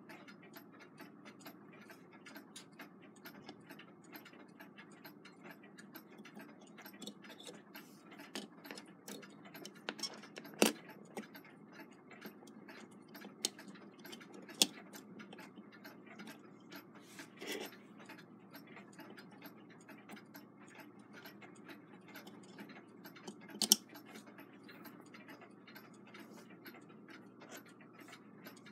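A clock ticking faintly and steadily, with a handful of louder sharp clicks and taps from brass clock wheels and arbors being handled and seated in a movement's plate. The sharpest clicks come about eleven seconds in and again about twenty-four seconds in.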